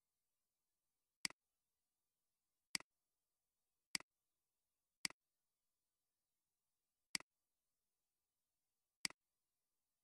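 Computer mouse button clicked six times, one to two seconds apart, each a short sharp click, with dead silence between.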